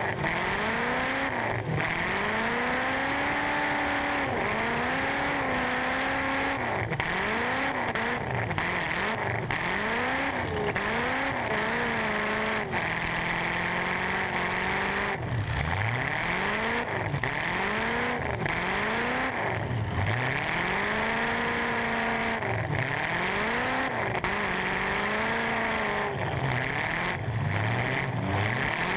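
Stock eight-cylinder truck engine, heard from inside the cab, revving up and dropping back over and over every second or two, with a steadier stretch near the middle, over a constant hiss.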